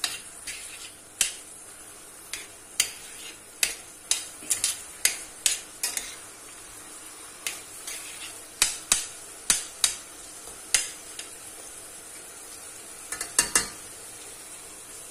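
Metal spoon stirring ground beef in a stainless steel pan, with irregular sharp clinks and scrapes against the pan over a steady sizzle of the mince frying in oil. The clinks pause for a couple of seconds, then a quick run of taps comes near the end.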